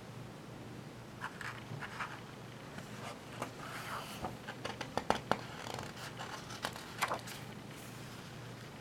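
Paper pages of a picture book being handled by hand: a run of rustles, scrapes and small clicks starting about a second in and dying away near the end, over a faint steady hum.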